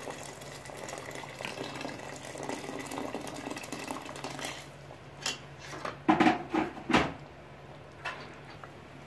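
Water poured from a jug into a stainless-steel pot of simmering tomato sauce, a steady splashing pour for the first four to five seconds. A few sharp knocks follow about six to seven seconds in, the loudest sounds here.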